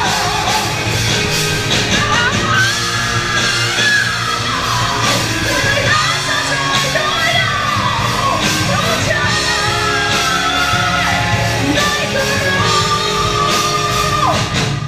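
Live rock band playing at full volume, with a male singer belting and shouting the vocal line over drums and guitars in a large hall. He holds one long high note in the last few seconds.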